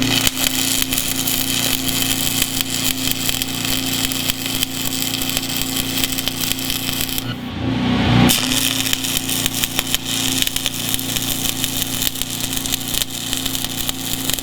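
Stick-welding arc crackling and hissing steadily as steel is tack-welded, with a short break about seven seconds in before the arc strikes again.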